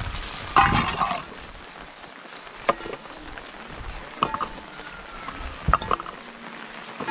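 Steady rain falling, with a few sharp knocks of a knife cutting raw meat on a stone slab; the loudest comes about a second in.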